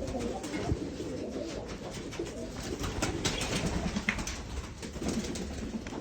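Pigeons cooing continuously, with scattered short high bird chirps and light clicks over the top.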